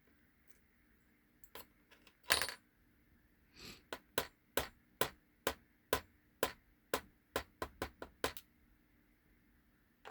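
Small metal parts of an Ultion 3-star Diamond lock cylinder clicking and clattering as it is taken apart. There is one clatter about two seconds in, then a run of sharp metallic clicks about two a second.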